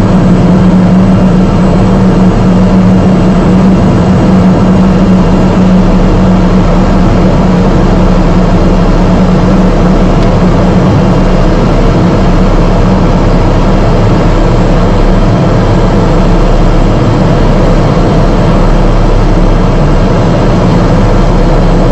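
Single-engine propeller aircraft's engine and propeller droning steadily, heard from inside the cockpit on final approach. Its strong low hum eases slightly about six seconds in.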